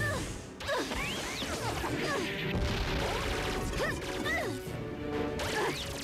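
Cartoon action sound effects over a background music score: crashes and impacts, with many quick swooping sounds that rise and fall in pitch.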